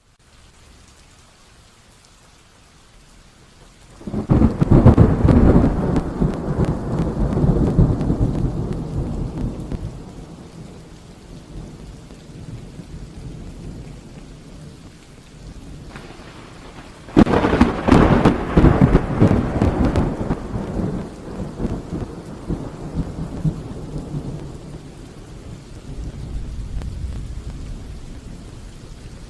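Thunderstorm: steady rain with two loud thunderclaps, the first about four seconds in and a sharper one about seventeen seconds in, each followed by rumbling that dies away over several seconds.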